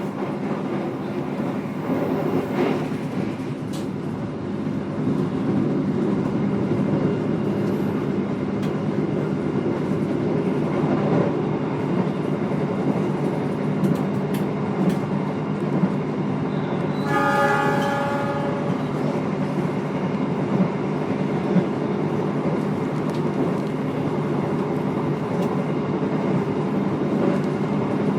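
Inside a moving passenger train carriage: a steady low rumble of the wheels on the rails, with a few faint clicks. About two-thirds of the way through, a train horn sounds once for about a second and a half.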